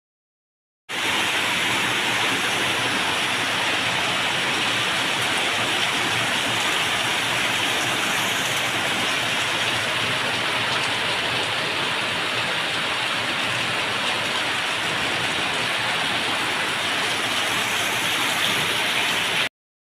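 Heavy rain falling steadily, an even hiss that starts abruptly about a second in and cuts off suddenly near the end.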